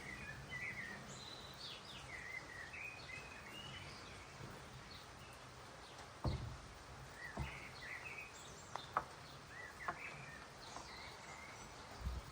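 Songbirds singing and chirping outdoors, with warbling phrases early on and scattered short chirps later, over a faint low hum. A few dull thumps about halfway through and near the end, and a couple of sharp ticks.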